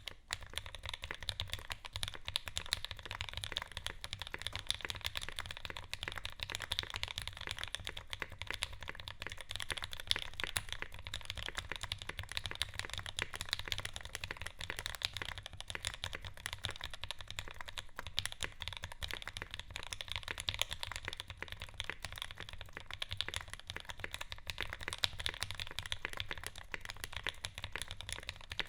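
Continuous fast typing on a custom mechanical keyboard with lubed Alpaca linear switches in an aluminium Xiyeon case with a full aluminium plate and GMK keycaps: a dense, even stream of keystroke clacks.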